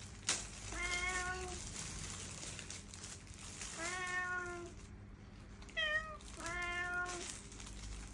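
Domestic cats meowing four times: three long meows held at a level pitch and one short, higher meow about six seconds in. A sharp click comes just after the start.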